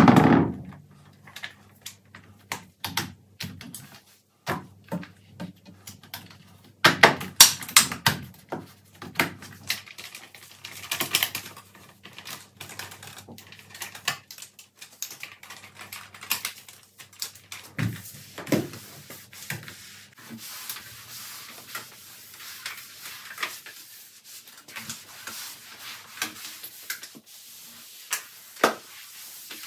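An irregular run of light clicks, taps and knocks from household items being handled during cleaning, busiest a few seconds in. A low steady hum runs underneath and stops about halfway through.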